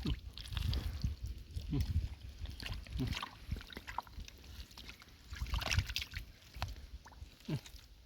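Hands digging and groping in wet mud and shallow water for clams: irregular squelching and sloshing, with a few short sucking sounds as the mud gives way.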